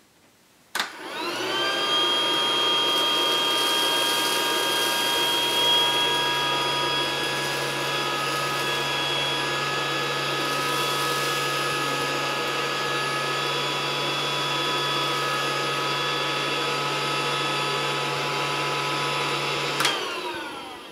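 Casdon toy Dyson DC14 vacuum cleaner's battery-powered hose-suction motor switched on about a second in, rising quickly to a steady whine as the hose sucks up polystyrene balls, then switched off near the end and winding down.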